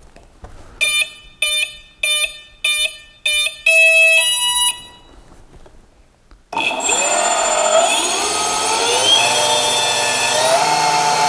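Brushless motor speed controllers beeping their startup tones through the weapon motors: five short evenly spaced beeps, then two longer tones stepping up in pitch. About six and a half seconds in, the brushless weapon motors spin up the belt-driven weapon pulley with a loud whine that glides up and down with the throttle, running quite well.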